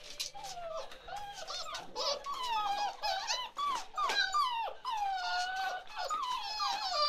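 Litter of seven-week-old chocolate Labrador Retriever puppies whining together, a chorus of overlapping high whines, many falling in pitch.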